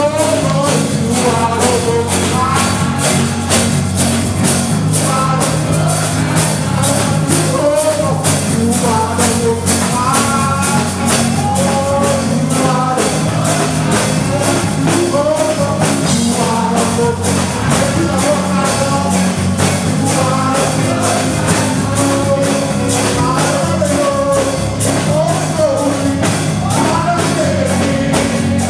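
Gospel praise and worship music: a praise team and congregation singing together over instrumental backing with a steady percussion beat.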